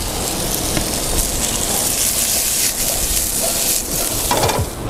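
Onions and bell peppers frying in hot oil in a pan on a camp stove, a steady sizzle.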